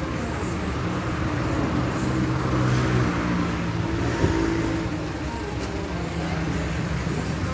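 Toyota Hilux D-4D diesel engine running steadily at idle, with a single sharp click about four seconds in.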